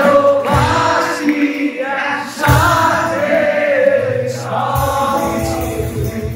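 Background music: singing voices over a low, pulsing beat.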